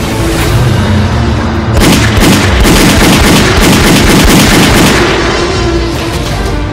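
Dramatic film score, cut through from about two seconds in to about five seconds by a loud, dense burst of booming blast or gunfire sound effects.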